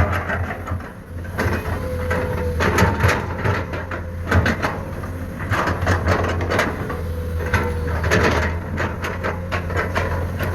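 Komatsu PC210 excavator working: a steady diesel engine hum under repeated clanks, knocks and scraping from the bucket and the soil it moves.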